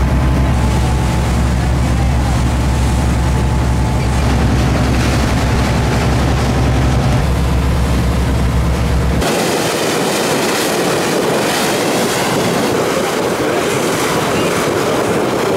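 A boat's engine running with a steady low hum under the rush of water along the hull. About nine seconds in the sound changes abruptly to a brighter hiss of wind and water with the engine hum gone.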